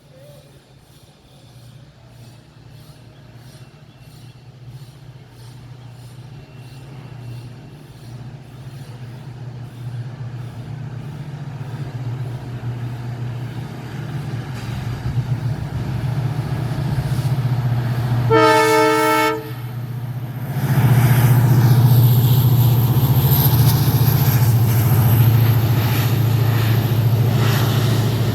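WDP4D diesel-electric locomotive's EMD 16-cylinder two-stroke engine humming as the train gets under way, growing steadily louder as it draws near. About two-thirds of the way in there is one short horn blast of about a second, and then the engine runs loud and close.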